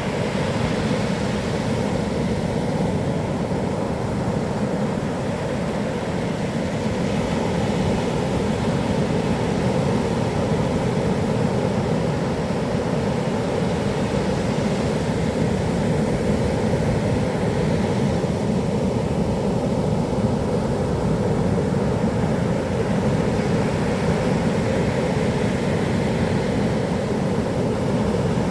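Heavy typhoon-driven surf breaking on a beach: a steady, deep roar of waves and wind, with no single crash standing out.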